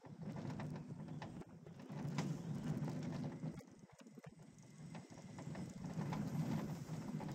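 Gerstlauer roller coaster train rolling along its steel track, heard on board: a low wheel rumble with scattered clattering and clicks, swelling and fading twice as the train runs through the turns.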